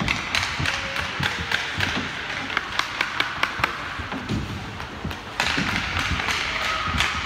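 Ice hockey sticks tapping and clacking on the ice, many sharp clicks a second, over the scraping hiss of skate blades. The scraping gets louder about five seconds in.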